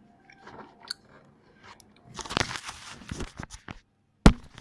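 A child chewing a gummy vitamin C pastille close to the microphone: scattered wet mouth clicks, then a denser noisy stretch of chewing about two seconds in, and one sharp knock near the end.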